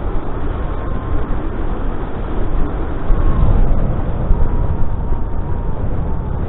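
Wind rushing over the microphone of a paraglider pilot's camera during a descending landing turn: a loud, steady low rumble. A faint thin tone comes and goes a few times.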